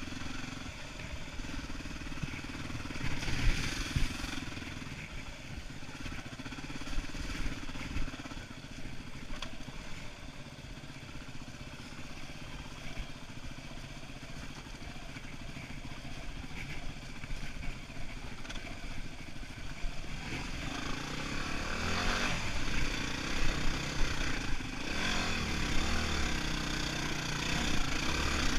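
Yamaha WR250R's single-cylinder four-stroke engine running while riding a dirt trail, the revs rising and falling with the throttle. It gets louder, with more revving, in the last several seconds.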